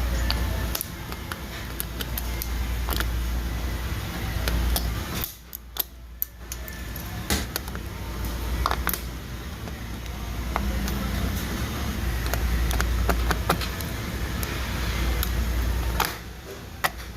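Scattered clicks and small knocks of a tool working pieces of a burnt power switch loose, over a steady low hum that drops out briefly twice.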